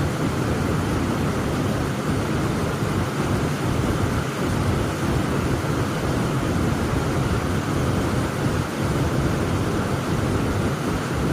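Heavy rain falling steadily: a dense, even wash of noise, heaviest in the low range, with no separate drops or events standing out.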